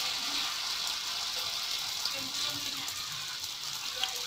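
Vegetable fritter batter frying in hot oil in a wok, a steady sizzle as spoonfuls of batter are added, with one sharp tap near the end and a faint voice in the background.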